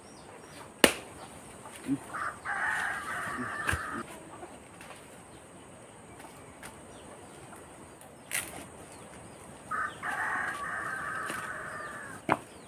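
A rooster crowing twice, each crow lasting a second or two, with a few sharp snaps from fishtail palm stem being broken apart by hand; the loudest snap comes about a second in.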